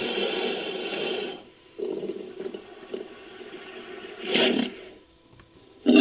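Designed creature vocalizations for an Eryops, made from crocodilian and wild boar recordings: raspy, hissing calls. A longer one comes first, then a quieter, rougher rasp, and a short loud hiss about four and a half seconds in.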